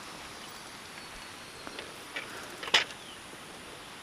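Mountain bike being handled and propped on wooden log steps: a few light clicks and one sharp knock a little under three seconds in, over a steady outdoor background.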